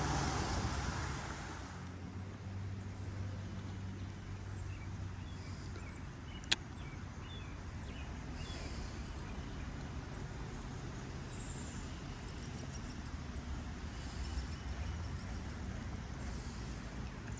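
Steady outdoor background rumble, with a bird calling faintly every few seconds in short high chirps, and a single sharp click about six and a half seconds in.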